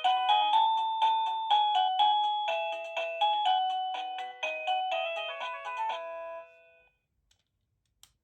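Avantek wireless doorbell chime playing one of its electronic melody tunes: a quick run of bright, bell-like notes that ends about six and a half seconds in, leaving a short silence.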